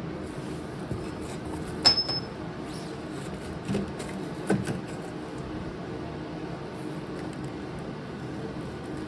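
Hand tools working on the steel parts of a BMW E46 rear subframe during output shaft removal: a sharp metallic clink with a short ring about two seconds in, then two duller knocks, over a steady low hum.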